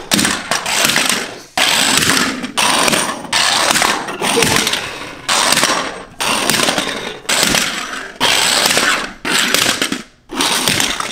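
Die-cast toy cars crashing and tumbling on a wooden floor: about a dozen sudden noisy crashes, roughly one a second, each fading quickly.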